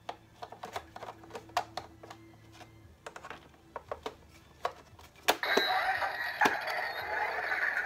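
Plastic clicks and taps as a Hasbro electronic Iron Man helmet is closed around the head. Then one sharp click, and the helmet's activation sound runs for about two and a half seconds.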